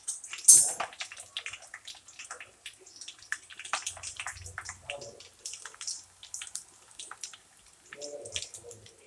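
Murukulu (rice-flour snacks) deep-frying in a kadai of hot oil: irregular sizzling and crackling, with a louder burst of crackle about half a second in.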